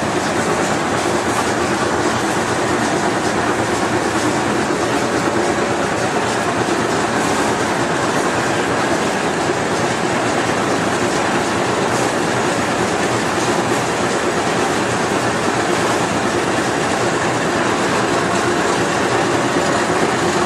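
GE/Fitchburg horizontal spline and pinion hobber running under power, a steady, unbroken mechanical noise from its drive and gearing.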